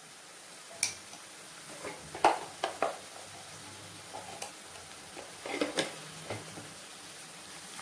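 Chopped onions frying in oil in a nonstick kadai with a low, steady sizzle. A few sharp clicks of a metal spoon against the pan come around two to three seconds in and again near six seconds.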